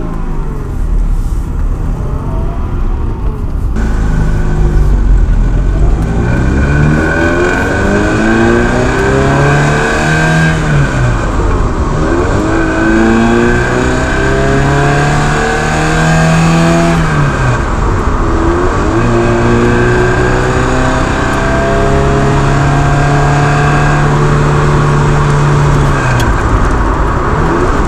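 1985 Ferrari 308 QV's V8 engine accelerating the car away, its pitch climbing through the gears with two upshifts, about ten and seventeen seconds in, then holding steady at cruise before easing off near the end. Heard from a camera mounted low on the body by a wheel, with road and tyre noise.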